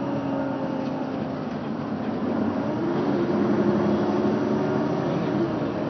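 Mercedes-Benz Citaro city bus engine pulling under load, heard from inside the passenger cabin; its note rises about two seconds in and then holds, over steady road and cabin noise.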